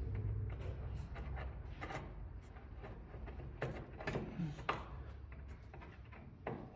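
Small irregular clicks, taps and rubbing from hands handling the ceiling canopy of a pendant lamp while it is fitted, with a low steady hum underneath.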